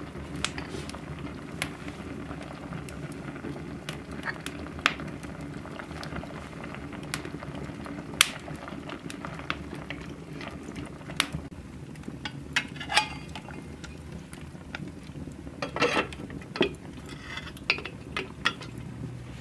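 Open wood fire crackling with scattered sharp pops, with a pot of soup bubbling over it. Near the end come a few clusters of metal knocks and clinks as the pots are handled.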